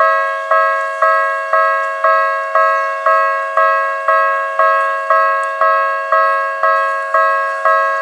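Japanese railway level-crossing warning bell ringing on a steady repeat, about two strikes a second. Each strike is a bright, pitched electronic 'kan' that fades before the next: the crossing is active, with a train approaching.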